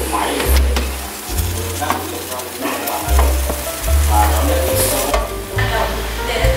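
Chicken thighs sizzling in a hot air fryer basket as it is opened and pulled out, with a few clicks and knocks from the basket and handle. A bass line of background music plays underneath.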